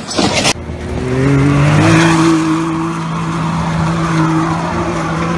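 A brief loud crash-like noise, then an off-road vehicle's engine revving hard as it climbs a steep dirt hill, its pitch rising over the first second or so and then held high and steady under load.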